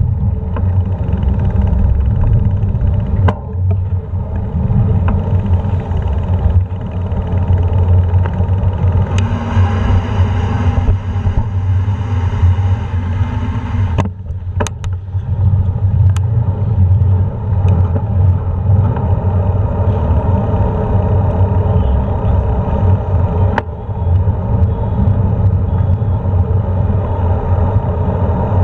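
Steady low rumble of wind buffeting the microphone and road noise from a bicycle being ridden along a street, with traffic around it. A few sharp clicks and knocks come through, and the noise brightens for a few seconds about ten seconds in.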